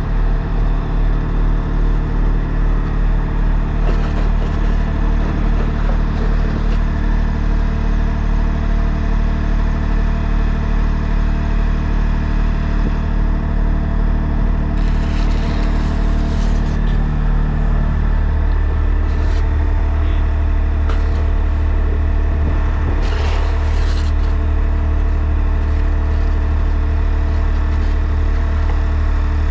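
Septic pumping truck's engine running with a steady throb, its note dropping lower about eighteen seconds in. Brief hissing bursts come around fifteen and twenty-three seconds in.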